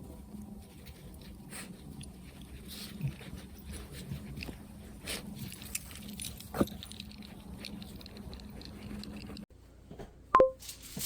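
A West Highland white terrier puppy moving about, with scattered light taps and clicks over a low steady hum. Near the end there is one short, high squeak, the loudest sound here.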